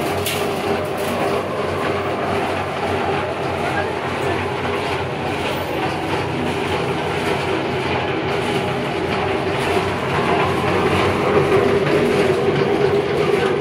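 Homemade electric cement mixer running empty: an electric motor turns the steel drum and its paddles through a V-belt and pulley drive, giving a steady hum with a rattle.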